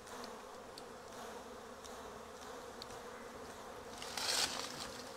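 Honeybees buzzing in a steady, low hum around an opened hive during honey harvesting. There is a brief louder noise about four seconds in.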